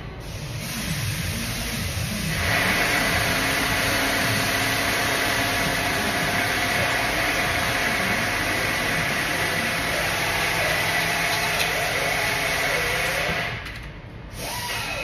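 A steady motor or machine running, with a constant high whine, starting about two seconds in and cutting off suddenly near the end.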